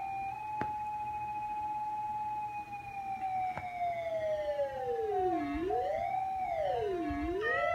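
Synthesizer tones: a steady high tone that begins to slide down about two and a half seconds in, then swoops low and back up roughly every second and a half in a slow wavering sweep, over a second, held tone.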